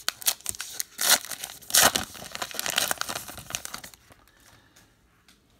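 A sealed Topps Gypsy Queen baseball card pack wrapper torn open and crinkled by hand, with two loud rips about one and two seconds in. The rustling stops near the end.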